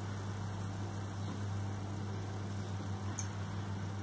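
Milk pouring in a thin steady stream from a plastic jug into a glass measuring cup, over a constant low hum.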